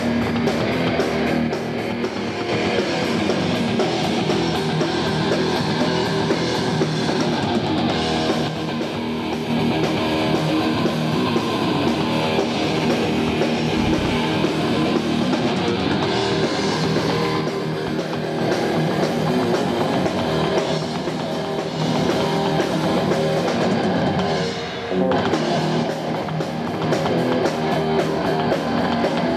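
Rock band playing live: electric guitars and a drum kit.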